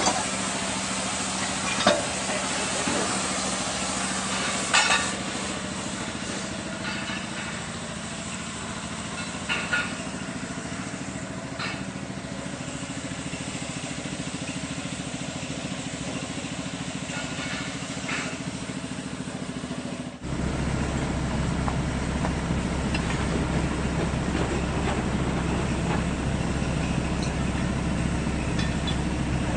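Excavator diesel engine running steadily, with a few sharp metal clanks over the first part. About two-thirds of the way through, the engine sound abruptly becomes louder and deeper and stays steady.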